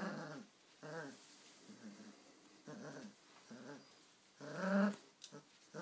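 Irish terrier puppy play-growling while tugging on a toy, in short repeated growls about one a second, the loudest near the end.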